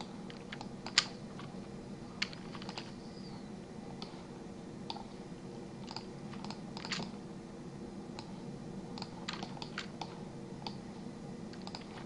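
Irregular clicks of a computer keyboard and mouse, one sharper click about a second in, over a steady low hum.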